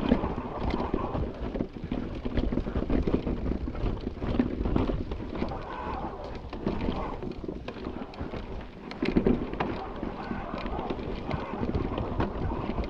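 Electric mountain bike riding over a rocky trail: tyres rolling and knocking on stone with frequent irregular clicks and rattles, and a low wind rumble on the microphone.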